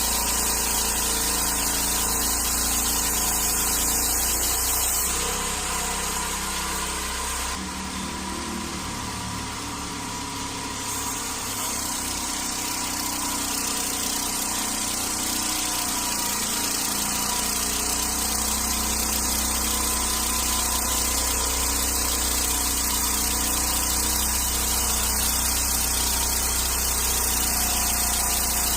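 A sawmill's engine running steadily, its sound changing for several seconds near the middle before settling back.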